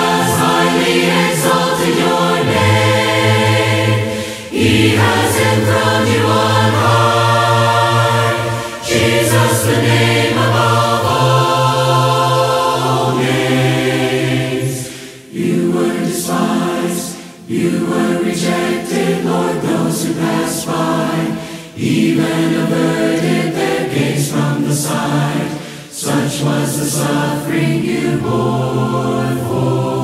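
Mixed choir singing a hymn a cappella in four-part harmony, phrase by phrase with short breaks between lines.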